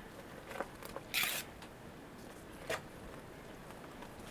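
A metal utensil clicking and scraping against a large aluminium stock pot while boiling water is stirred: a few faint clicks and one short scrape about a second in.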